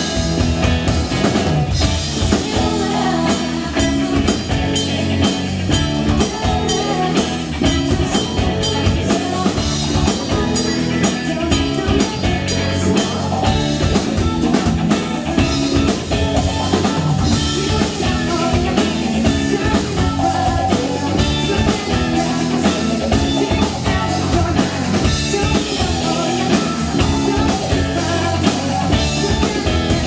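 Live rock band playing a song with a steady drum-kit beat and guitar.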